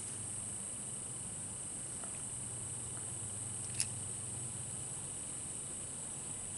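Steady, high-pitched drone of an insect chorus in summer woodland, with a single sharp click just under four seconds in.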